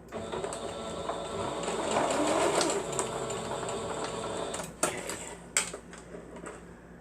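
Sewing machine stitching at a steady run, stopping about four and a half seconds in, followed by two sharp clicks.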